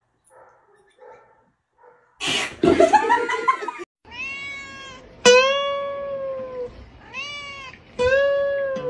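Domestic cat yowling: four long drawn-out meows from about four seconds in, each arching up and then down in pitch. Before them comes a short loud burst of noisy sound with a rising tone.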